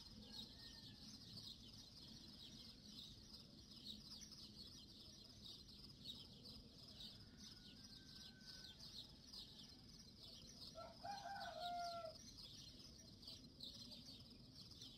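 Faint, continuous high chirping of small birds, with a rooster crowing once about eleven seconds in.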